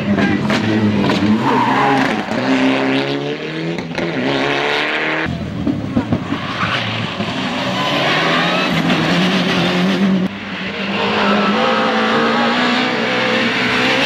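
Rally cars driven hard past the camera, their engines revving up and dropping back through gear changes. The sound cuts abruptly from one car to the next about five seconds and ten seconds in.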